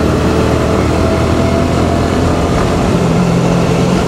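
Honda CBR150R's single-cylinder engine running steadily while riding, with heavy wind noise over the microphone.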